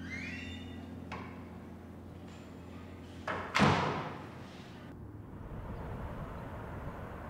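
A classroom door swinging shut with a single loud thud about halfway through, after piano music fades out at the start.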